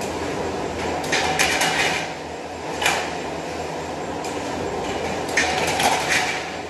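Rollforming line for steel drywall profiles running: a steady mechanical drone, with short bursts of metallic rattling about a second in, near three seconds, and again between five and six and a half seconds.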